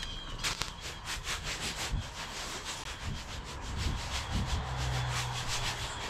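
Footsteps crunching and swishing through dry fallen leaves at a walking pace. A steady low hum joins about two-thirds of the way in.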